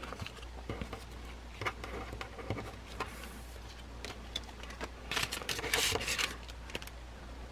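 Faint handling sounds of packaged fan goods: scattered light clicks and taps, with a short stretch of plastic rustling about five seconds in.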